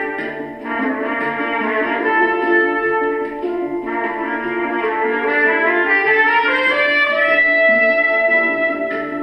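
Instrumental background music with several sustained pitched instrument lines.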